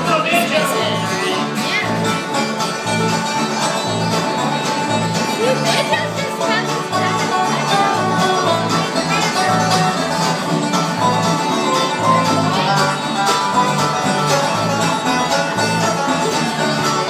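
Bluegrass band playing an instrumental passage with no singing: fiddles and acoustic guitar over bass notes on the beat, about two a second.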